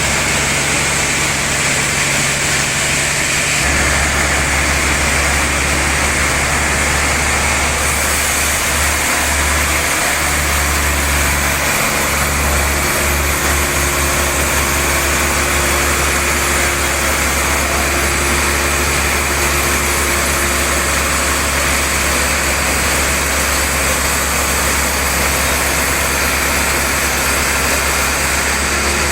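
Sawmill bandsaw running steadily while sawing through a large trembesi (rain tree) log, a loud continuous machine noise with a low hum underneath.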